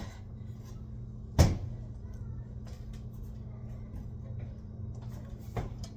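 A single sharp knock about a second and a half in, over a steady low hum, with a few faint handling clicks near the end.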